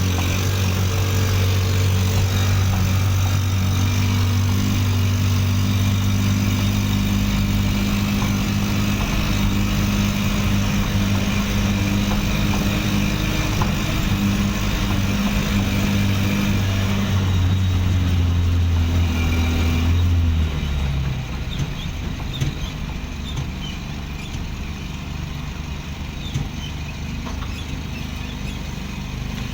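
Motorcycle engine in a small home-built car running at a steady speed with an even hum. About two-thirds of the way through the engine note stops, leaving quieter general outdoor noise.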